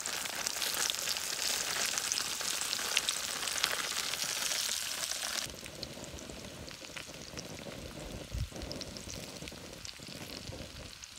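Potatoes frying in a pan, a dense crackling sizzle. About halfway through it drops suddenly to a quieter sizzle.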